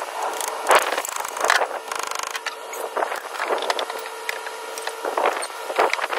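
Hand work on a car's front steering and suspension from underneath: irregular metal clanks, knocks and scrapes of tools and parts, the loudest knock under a second in and a short rasp around two seconds in.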